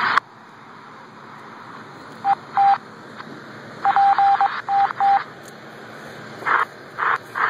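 Two-way radio chirping: short beeps at one pitch, two at a time and then a quick run of several, each with a burst of static, followed by static bursts without the beep near the end.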